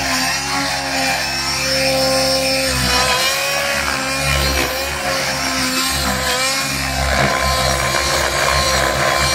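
Nitro RC helicopter's glow engine and rotors running in low flight, the engine pitch wavering up and down as the throttle and rotor load change.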